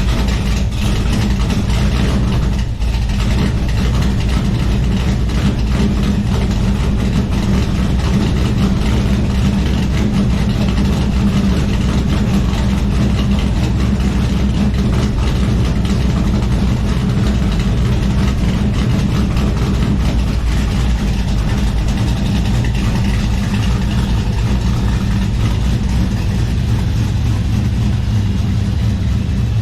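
LS V8 engine in a swapped OBS pickup idling steadily, a deep even run right after start-up.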